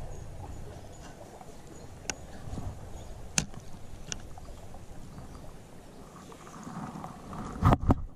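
Shallow sea water sloshing close to the microphone of a wading angler, with a few sharp clicks from handling the spinning reel and rod. Near the end comes a burst of loud knocks as the camera comes down to the water surface.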